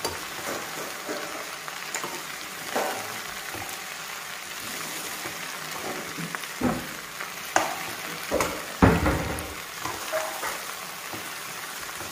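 Sliced okra and onions sizzling in oil in an aluminium kadhai, stirred with a spatula that scrapes and knocks against the pan every second or so, loudest about nine seconds in.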